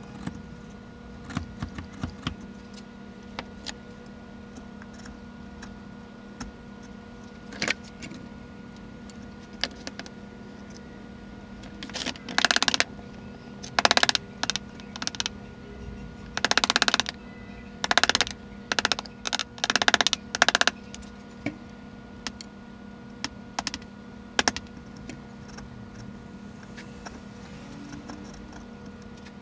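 Hand chisel work on a wooden dovetail joint: scattered sharp taps and clicks of a wooden mallet driving a bevel-edge chisel. Between about twelve and twenty-one seconds in come a run of louder cutting strokes, each under a second long. A steady low hum runs underneath.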